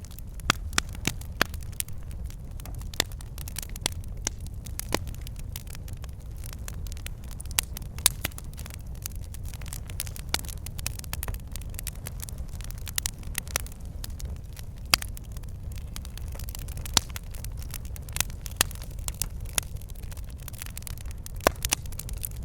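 Log fire in a fireplace crackling and popping: sharp, irregular pops over a steady low rumble of the flames.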